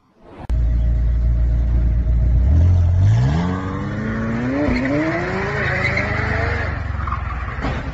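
McLaren 720S twin-turbo V8 starting suddenly about half a second in, running hard and then climbing steeply in pitch as the car launches, with a short dip in the middle like a gear change. The rear tyres spin and squeal as the car slides sideways.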